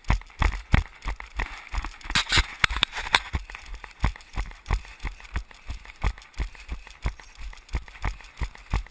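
A runner's footfalls on a dirt woodland trail, picked up through a body-mounted camera as steady, evenly spaced thumps at about three a second, a running pace.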